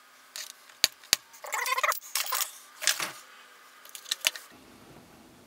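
Small metal hand tools and parts being handled on a workbench: a few sharp clicks and short clinking, jingling rattles, bunched in the first three seconds with one more click a little after four seconds.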